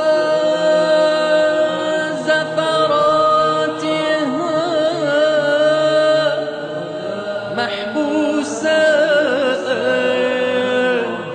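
Wordless vocal chant over a steady held drone, the voice sliding and wavering through ornamented phrases.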